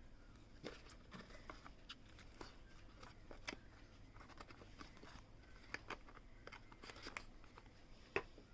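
Faint scattered clicks, taps and light rustles of the smartwatch box and its accessories being handled, with one sharper click near the end.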